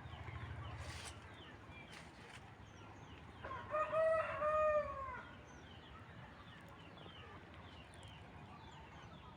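A rooster crowing once, a single call of about a second and a half that rises and then falls, with faint high chirps scattered around it.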